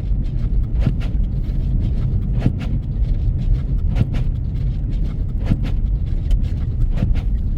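Road noise heard from inside a car driving on snow-covered streets: a steady low rumble of engine and tyres, with short swishes about every second and a half.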